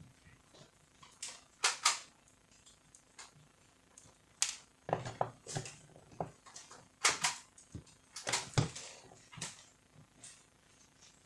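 Metal and plastic parts of a copier's fuser unit handled and fitted together during reassembly: a dozen or so irregular sharp clicks and clacks, the loudest about two seconds in and again around seven and eight and a half seconds in.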